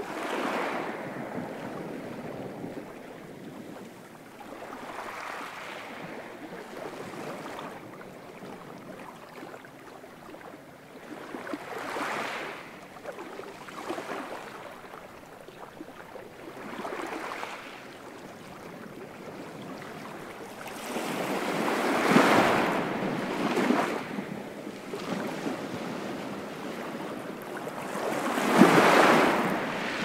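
Sea waves washing in, the surf swelling and fading in a hiss every few seconds, with the two largest waves in the second half.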